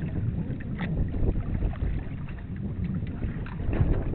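Wind buffeting the microphone over water rushing along the hull of a sailboat under way, with a few faint knocks.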